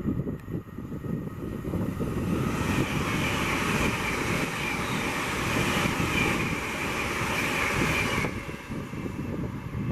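A train passing at speed: a steady rushing hiss that cuts off suddenly near the end, over wind buffeting the microphone.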